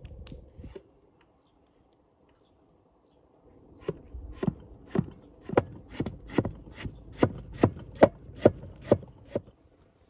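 Cleaver slicing tomatoes on a wooden cutting board: a steady run of about a dozen knocks of the blade on the board, roughly two and a half a second, starting about four seconds in. A short clatter comes at the very start.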